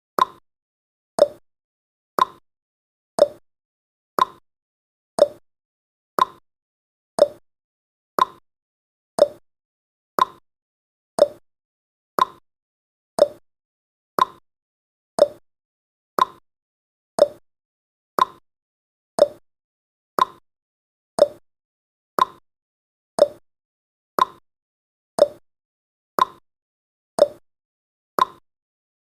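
Countdown timer's tick sound effect: one short, sharp tick every second, evenly spaced, with silence between.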